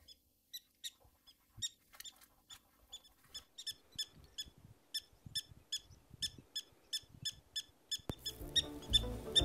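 Black-tailed prairie dog giving a run of short, high chirps, sparse at first and then about three a second: the repeated 'chirk-chirk-chirk' alarm call. Banjo music comes back in near the end, louder than the calls.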